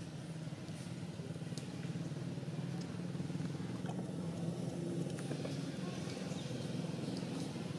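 Steady low hum of a running motor engine, with a few faint clicks over it.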